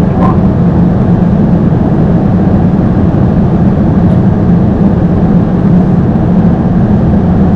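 Airbus A220 airliner's steady, loud rumble of airflow and engine noise, even throughout.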